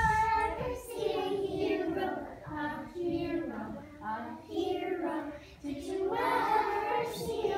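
Young children singing a song together, in several sung phrases with short breaks between them.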